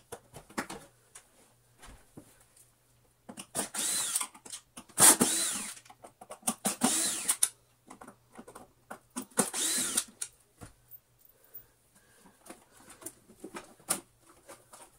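Cordless drill-driver whirring in four short bursts of about a second each as it backs screws out of a plastic vacuum cleaner housing, with light clicks and knocks of plastic parts being handled in between.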